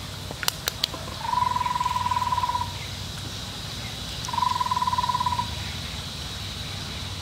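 A rapid, even trill from an animal, each call lasting about a second and a half and repeating about every three seconds. Three quick sharp clicks come about half a second in.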